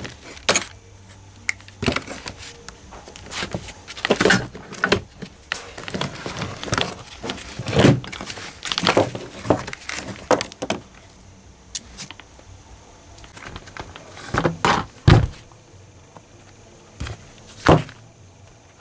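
Angle grinders and other power tools being rummaged through and pulled from a pile: irregular clunks and clatters of their plastic bodies, with cords rustling and dragging between them. A louder thump comes near the end.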